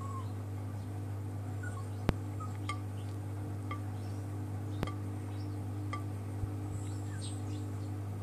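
Miele Softtronic W 2557 washing machine running in its spin phase after the main wash, with a steady low hum. Three sharp clicks and a few light, high clinks come over it.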